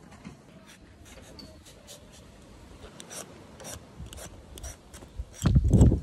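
Metal vegetable peeler scraping the skin off an unripe papaya in short rasping strokes, roughly two a second. A loud low rumble comes near the end.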